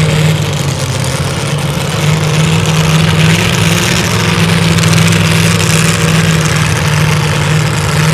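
Modified two-wheel-drive pulling truck's engine idling steadily while hooked to the pulling sled at the starting line.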